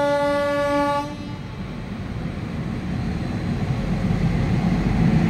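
Electric locomotive horn holding one steady note, cutting off about a second in. It is followed by the rumble of a goods train's two coupled electric locomotives passing close by, growing louder.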